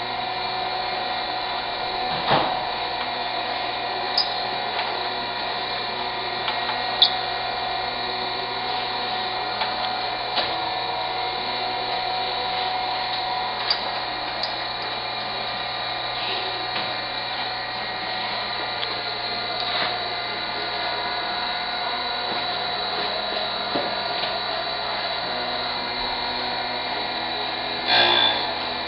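Chevalier 6" x 18" manual surface grinder running, its wheel spindle giving a steady whine with a few light clicks. Near the end the wheel meets the work and grinds briefly in a louder, rough burst.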